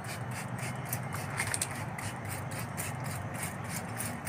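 Hand trigger spray bottle squeezed over and over, about three short hisses of mist a second, over a steady low hum.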